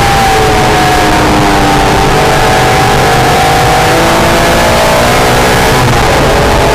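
Acura NSX's V6 engine running hard on track, heard loud from inside the car over road and wind rumble. Its pitch drifts down for the first few seconds, then climbs again after about four seconds.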